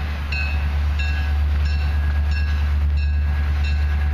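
A railroad bell ringing evenly, about three strokes a second, over a steady low rumble as the train approaches.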